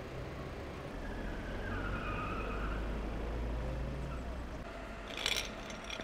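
A vehicle engine running with a low, steady rumble, with a faint high whine in the middle. A sharp clack comes about five seconds in.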